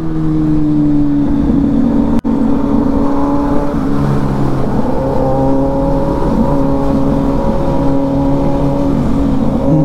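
Motorcycle engines running at a steady cruise, a continuous drone whose pitch drifts slightly with the throttle. The sound cuts out for an instant about two seconds in.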